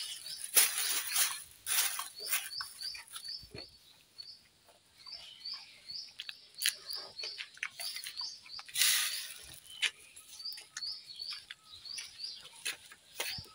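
Plastic bag rustling and crinkling in bursts, loudest near the start and again about nine seconds in, among small clicks of puffed rice being handled and eaten. Behind it, a small bird chirps over and over in short high notes, a few a second.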